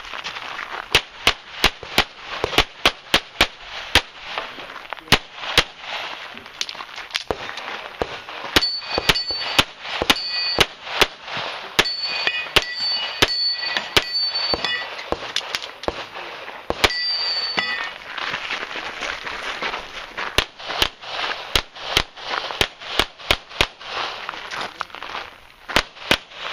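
Handgun fired in rapid strings, often two shots close together, with short pauses between strings. Steel targets ring with a high metallic tone after hits in the middle of the sequence and once more a little later.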